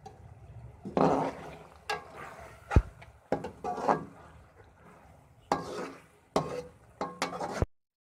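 Steel slotted spoon stirring a wet chicken and pea masala in a metal wok: irregular scrapes and clinks of metal on metal, with one sharp knock against the pan just under three seconds in.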